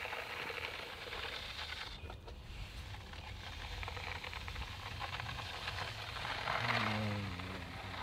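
Metal bull float on a long handle being pushed and pulled over freshly poured wet concrete: a continuous wet scraping hiss as it smooths the slab, pressing the stone down and bringing the cream up. A brief low-pitched tone sounds near the end.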